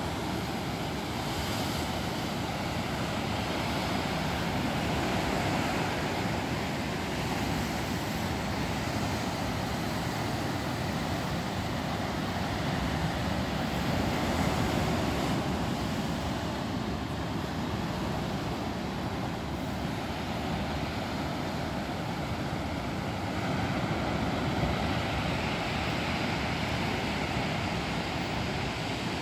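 Heavy ocean surf breaking and washing into a rocky cove: a steady rushing noise that swells slightly every ten seconds or so.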